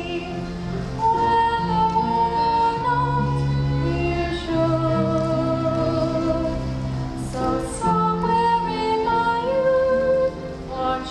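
A girl singing a slow solo song over sustained instrumental accompaniment, holding notes with vibrato. The singing breaks briefly for a breath about ten seconds in.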